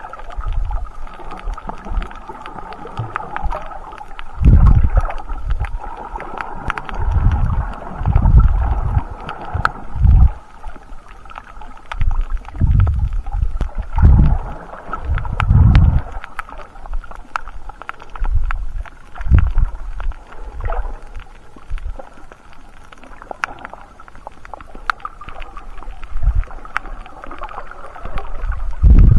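Muffled underwater sound of snorkelling from a camera held below the surface: irregular low surges and rumbles of water moving past as the swimmer kicks along, over a steady hum, with scattered faint clicks.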